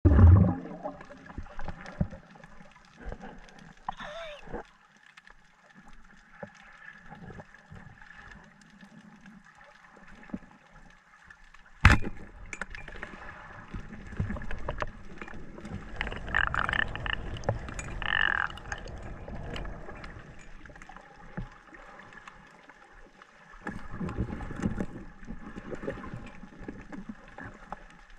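Underwater sound picked up by a camera submerged during a spearfishing dive: uneven water noise and gurgling with scattered knocks, and one sharp crack about twelve seconds in.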